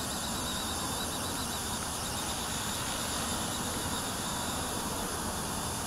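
WLtoys V950 RC helicopter in flight, its electric motor and rotors giving a steady high whine that wavers slightly in pitch.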